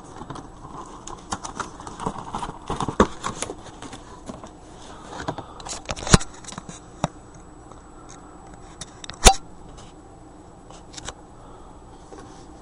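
Scissors snipping and scraping at a box's packaging, with scattered rustles and clicks of handling. Two much louder sharp clicks stand out, about halfway through and again about three seconds later.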